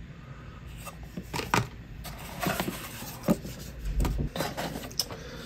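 Handling noise from unpacking: a few light clicks, taps and rustles as a plastic electronic device and cardboard packaging are moved and set down.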